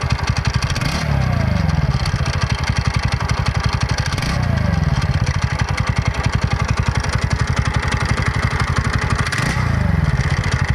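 TVS Ntorq Race XP BS6 scooter's single-cylinder engine running with a loud, harsh noise and blipped up briefly three times. The mechanic puts the noise down to a loose nut on the self-starter bearing, not the timing chain.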